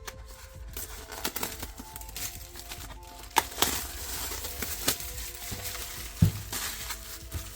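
Soft background music with held tones, under clicks, knocks and rustles of wrenches and their packaging being handled; a dull thump about six seconds in is the loudest.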